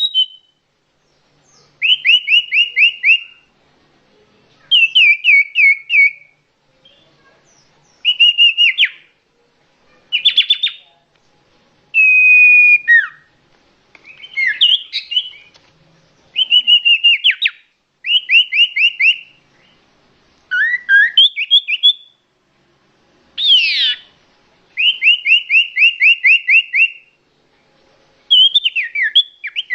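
Common iora (cipoh) lure call: rapid trilled phrases about a second long, each sliding slightly down in pitch, repeated with short pauses between them. A few clear whistled notes and one sharp downward-sweeping note are mixed in.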